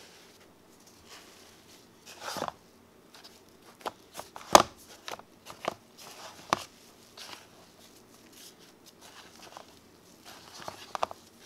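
White fluffy slime (PVA glue whipped with shaving foam) squished and poked by a gloved hand in a plastic container. It gives scattered sharp pops and crackles, loudest about four and a half seconds in, eases off for a few seconds, then pops a few more times near the end.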